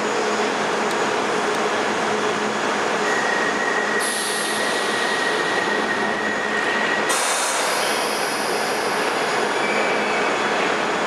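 A London Underground 1973 Stock train at a platform: steady loud running noise, with a high whine held for about four seconds in the middle as the doors close. It then begins to move off toward the end.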